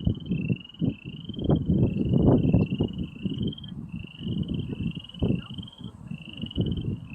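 A chorus of boreal chorus frogs, many overlapping short rising trills one after another. Under them, irregular gusts of wind rumble on the microphone, louder than the frogs.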